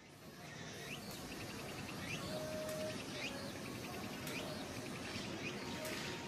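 Outdoor background hiss with a bird repeating short rising chirps about once a second, and one brief steady whistled note about two seconds in.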